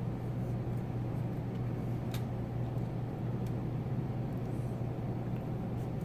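A steady low background hum, with a couple of faint ticks.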